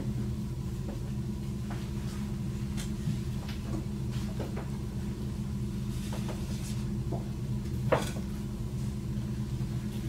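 Illustrated cards being slid in and out of wooden kamishibaï theatres: a few faint scrapes and light knocks of card against wood, with one sharper knock about eight seconds in. A steady low hum runs underneath.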